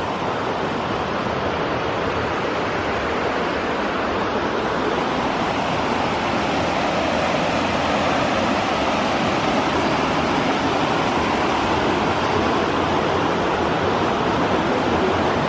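Rushing water of the North Umpqua River, a steady roar that slowly grows a little louder.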